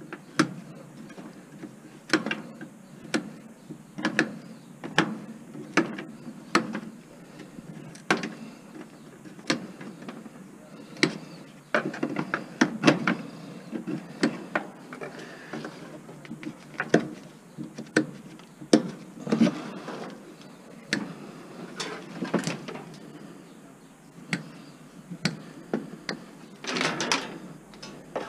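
Hand wire cutters snipping through an old electric stove's internal wiring, one sharp click about every second, with the wires rustling and scuffing between cuts. Near the end there is a longer burst of rustling.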